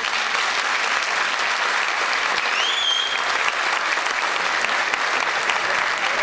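Audience applauding steadily, with a single whistle that rises and then holds briefly about two and a half seconds in.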